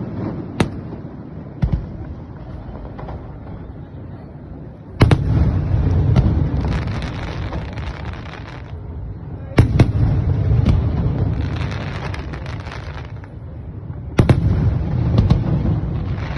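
Aerial fireworks bursting: two smaller bangs in the first two seconds, then three loud bangs about four and a half seconds apart, each followed by a few seconds of dense crackling over a low rumble.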